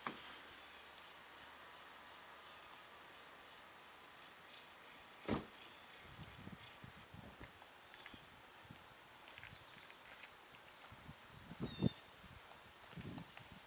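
A steady, high-pitched chorus of insects singing in grass, with two short knocks, about five and twelve seconds in.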